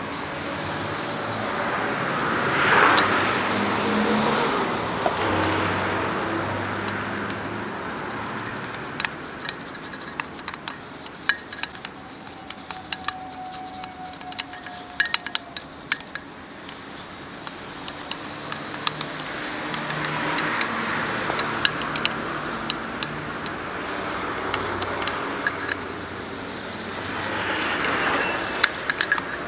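Vehicles passing by three times, each swelling up and fading over a few seconds. In the quieter middle stretch come scattered sharp clicks and light metallic clinks of shop work.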